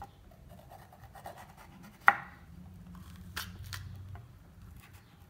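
Kitchen knife cutting through a yellow bell pepper on a wooden cutting board: faint crisp cuts and scraping, with one sharp click about two seconds in and two smaller clicks a little later.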